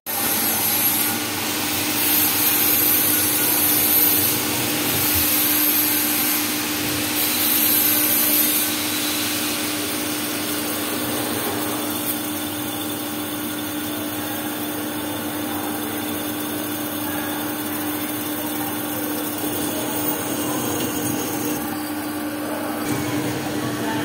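Metal lathe turning a metal knob: the spindle runs with a steady hum while the tool cuts and coolant sprays, a hiss that is louder for the first eight seconds or so and then settles.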